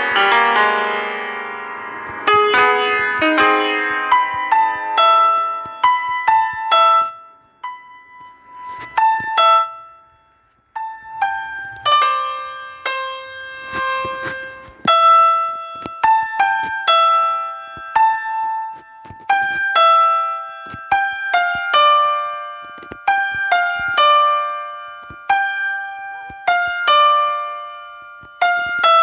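Piano music: a loud, dense chord fades out over a couple of seconds, then a few scattered notes and a brief lull, followed by a steady, unhurried line of single notes and small chords, each struck and left to ring out.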